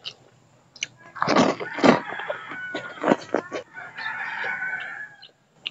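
Rooster crowing, one long drawn-out call in the second half, mixed with close-up slurping and chewing of noodles and rice eaten by hand.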